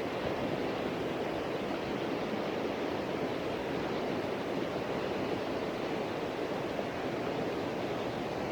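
River water rushing steadily, a constant even noise.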